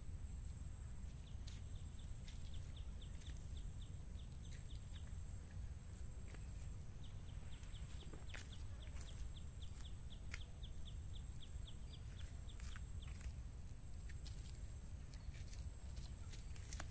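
Riverside outdoor ambience: a steady high-pitched insect buzz, with an animal's rapid series of short ticking calls, about five a second, heard twice, a little after the start and again around the middle, over a low wind rumble with scattered clicks.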